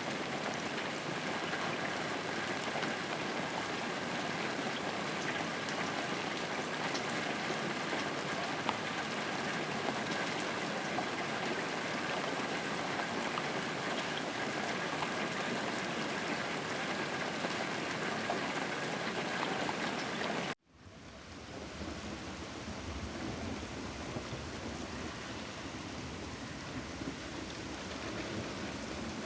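Steady rainfall. About twenty seconds in, it cuts out abruptly and a different rain recording fades back in, with a low rumble underneath.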